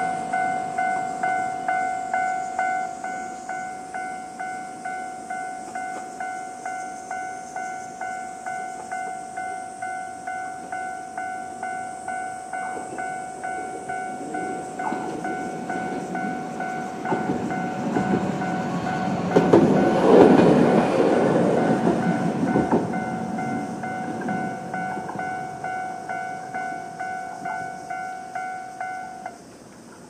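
Japanese level-crossing alarm ringing its electronic bell at about two strikes a second. A TLR0600-series low-floor light rail tram rumbles over the crossing in the middle, loudest about two-thirds of the way through. The bell stops just before the end.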